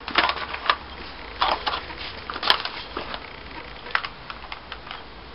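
Weimaraner puppy carrying a small flower pot in its mouth, with an irregular run of sharp cracks and crackles as the pot is gripped and crunched in its teeth.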